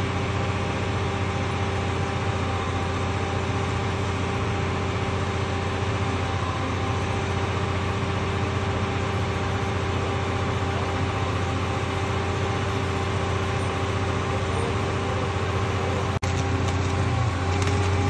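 Engine of a mobile flash-butt rail welding machine running steadily with a low hum. Near the end the sound gets louder and crackles as flash-butt welding of the rail joint begins.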